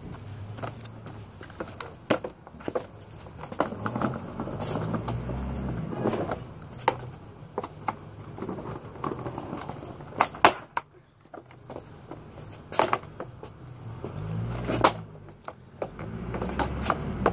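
Child's toy scooter rolling over brick paving with a low rumble, broken by scattered clacks and knocks as it is hopped and landed.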